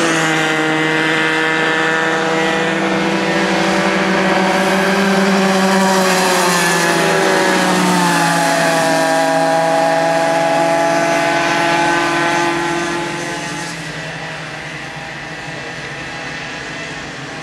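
Bambino karts' 50cc two-stroke engines running around the track, more than one note at a time. About eight seconds in, the pitch falls as they slow for a bend and then climbs again as they accelerate. The sound fades noticeably after about twelve seconds as they move away.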